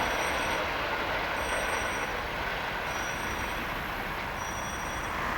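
Steady rushing noise of an electric commuter train running over a level crossing. Over it, a short high electronic warning beep sounds at the crossing about every one and a half seconds.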